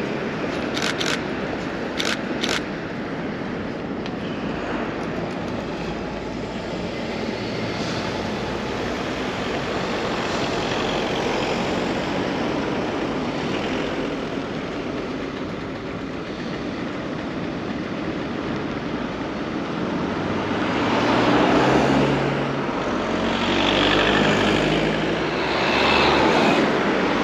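Road traffic on a wet city street: cars and buses passing steadily, with heavier vehicles swelling louder twice in the last several seconds as they go close by. A few sharp clicks in the first couple of seconds.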